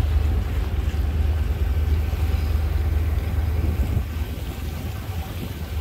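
Steady low drone of a river cruise boat's engine, heard from on board, with a rushing noise over it.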